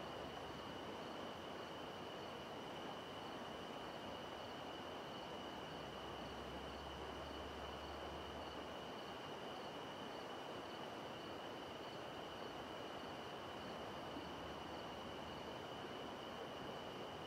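Steady outdoor night ambience: insects chirring at one steady high pitch, with a fainter pulsing chirp above it, over an even hiss.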